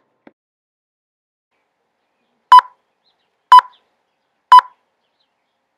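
Three short electronic beeps of the same pitch, evenly spaced a second apart.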